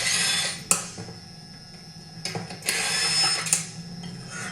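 A handheld power driver with a 7/16 socket runs in two bursts of about a second each, spinning out the two lower bolts of a chainsaw's rear shroud, with a sharp click at the end of each burst.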